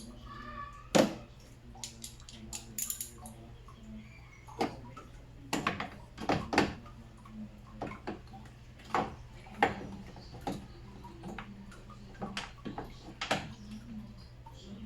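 Irregular clicks and knocks of work on a car's radiator, a dozen or so sharp taps spread unevenly over a steady low hum.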